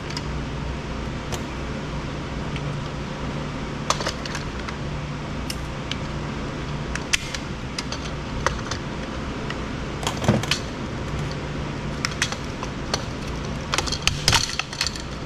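Plastic parts and wiring of a Roomba robot vacuum being handled during hand disassembly: scattered clicks, clinks and small clatters, busiest near the end, over a steady low hum.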